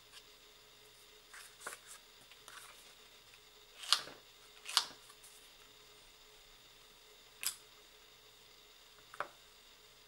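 A few short scrapes and taps as nail-stamping tools work a metal stamping plate: a scraper drawn across the polished plate and a clear jelly stamper pressed onto it. The two loudest strokes come close together about four seconds in, with two lighter ones later.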